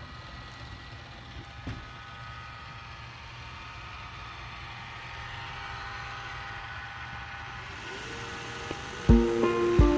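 Roomba i7+ robot vacuum running, its motor and brushes making a steady hum with a faint whine that grows slightly louder. Acoustic guitar music starts near the end.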